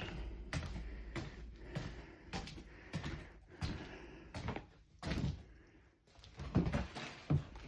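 A door being opened and shut, with a series of scattered knocks and thumps over several seconds.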